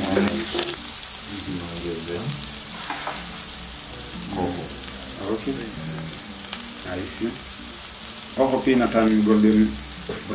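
Sliced onions sizzling as they fry in a pot, being stirred. A voice-like pitched sound is briefly louder near the end.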